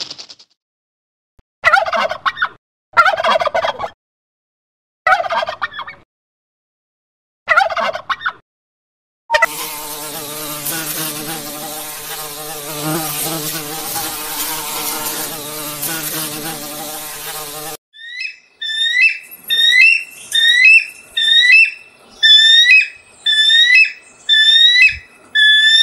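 Four short turkey gobbles, each about a second long, a second or two apart. Then a honeybee buzzes steadily for about eight seconds. Then a bald eagle gives a high chirping call about eight times at an even pace.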